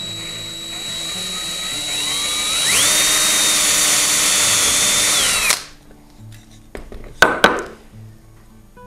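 Handheld electric drill with a 4 mm bit boring a through hole in a small piece of wood. The motor whine rises as it spins up, holds steady at full speed for about three seconds, then stops suddenly a little past halfway. A couple of sharp clicks follow, over quiet background music.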